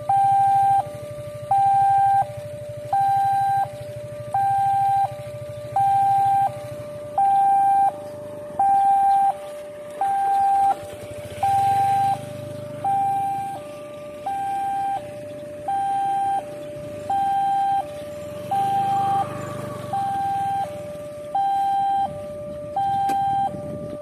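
Automatic railway level-crossing warning siren sounding a steady hi-lo two-tone, about 0.7 s on each tone, repeating evenly. It warns that a train is approaching, and the clean, smooth tone shows the siren working normally again after it had sounded hoarse.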